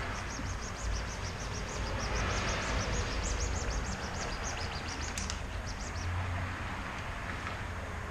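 A bird chirping rapidly, a run of short high chirps about five a second that stops about six seconds in, over a steady low background rumble.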